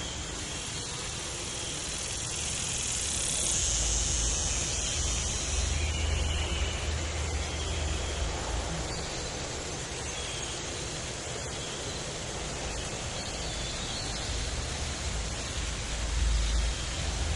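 Tropical forest ambience: a steady hiss with insects chirring, and a low rumble that swells about four to seven seconds in and again near the end.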